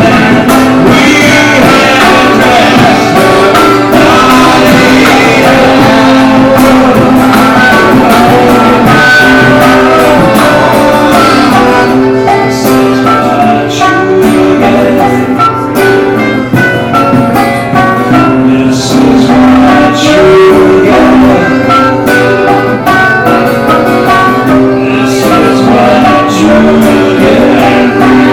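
Live band performance: several voices singing together over guitar, with a steady percussive beat running through it.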